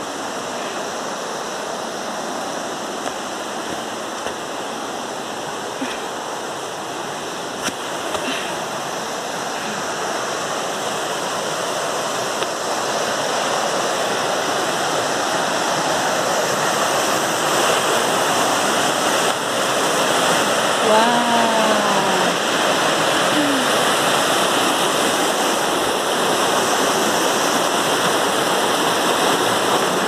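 Rushing water of a rocky stream and its small cascades, a steady wash that grows louder as it is approached.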